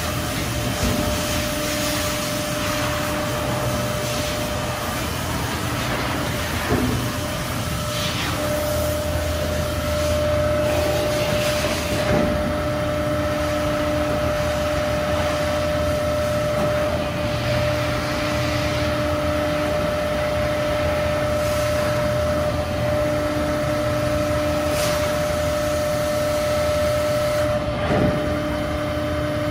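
Hydraulic pump unit of a 1998 Trumpf TrumaBend V170 press brake running steadily: a constant low hum with a whine that grows stronger about eight seconds in, and a few short knocks.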